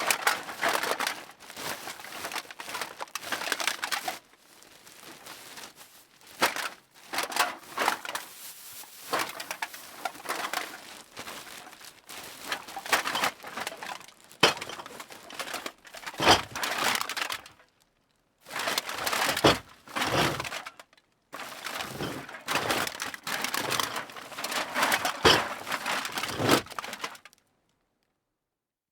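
Used beer and soda cans being tossed into a bag: a dense metallic clatter of cans knocking against each other, coming in bursts with two short pauses in the second half. It stops shortly before the end.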